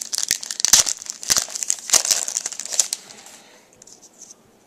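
Foil wrapper of an Upper Deck hockey card pack torn open and crinkled by hand: a dense run of crackles and sharp snaps for about three seconds, then quiet.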